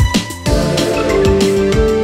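Background music with a steady beat; about half a second in, held notes of a melody come in over it.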